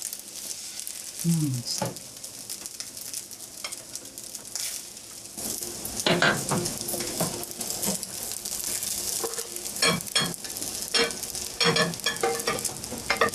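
Fried rice sizzling in a hot pan while a spatula scrapes and knocks against the pan, scooping the rice out in a run of short strokes that come thickest in the second half.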